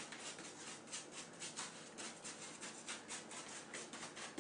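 Aerosol can of enamel spray paint being shaken, its mixing ball rattling in a steady rhythm of about four to five strokes a second.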